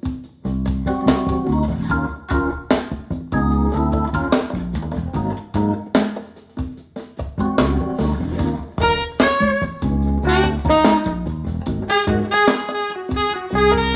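Recorded music played back through an Audio Note valve amplifier and loudspeakers: pitched keyboard-like chords and melody over frequent percussive hits.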